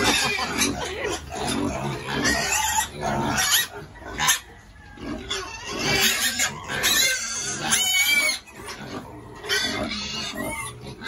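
Several domestic pigs squealing loudly over and over, hungry and calling to be fed.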